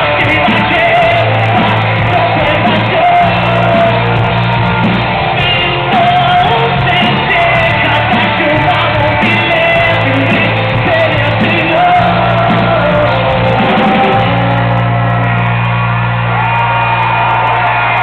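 A live rock band plays loudly, with a male lead voice singing and shouting into the microphone over guitar, keyboards, bass and drums, heard from within the audience in a concert hall. A low note is held through the last few seconds.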